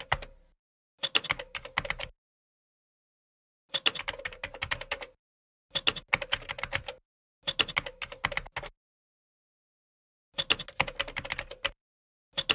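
Computer keyboard typing in quick bursts of keystrokes, one short word per burst: about five bursts, each a second or so long, with dead silence between them, and another starting near the end.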